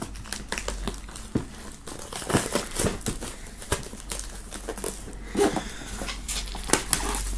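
Clear plastic shrink-wrap film being torn open and peeled off a cardboard box, crinkling and crackling irregularly.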